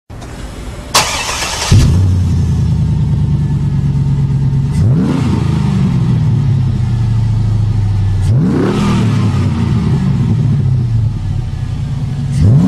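Chevy 6.0-litre V8 through a Banks exhaust: cranked by the starter about a second in, it catches and settles into a steady idle. It is then blipped three times, each rev rising quickly and falling back to idle.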